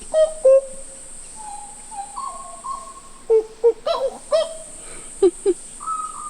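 Rainforest birds calling in clear whistled notes, some held and stepping down in pitch, others short swooping calls, over a steady high-pitched insect drone.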